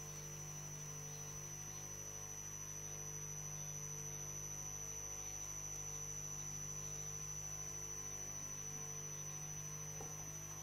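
Steady electrical mains hum with a thin high whine, unchanging and with nothing else over it.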